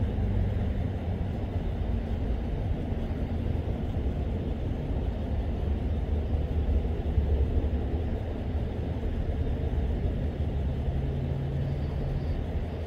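Steady low rumble of idling vehicle engines and road traffic.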